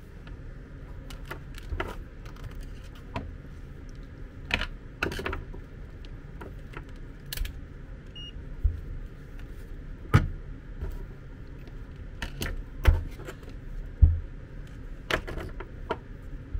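Scattered light clicks and taps of multimeter test leads and a small metal connector being handled on a rubber work mat, with a few louder knocks on the bench about two-thirds of the way in, over a steady low hum.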